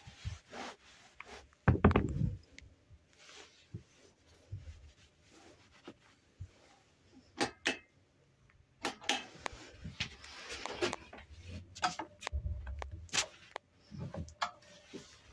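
Irregular knocks, clicks and rubbing from a hand patting and stroking a train's fabric seat, overhead luggage rack and plastic wall panel, with a louder thump about two seconds in and a couple of low thuds near the end.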